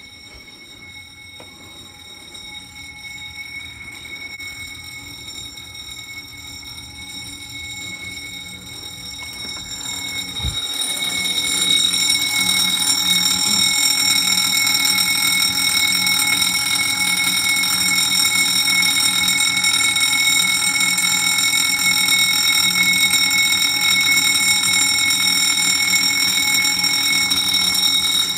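An apartment building's medical call bell is sounding as a continuous, steady high-pitched alarm tone. It is fainter at first, then grows louder about ten to twelve seconds in and holds loud after that. A single low thump comes just before it swells.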